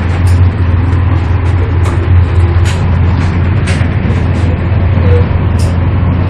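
Moving ICE high-speed train heard from inside the coach: a steady loud rumble over a low hum, with scattered sharp ticks.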